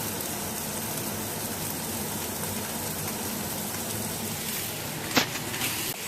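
Steady hiss of food sizzling in a frying pan. A sharp knock comes about five seconds in, followed by a few lighter clicks.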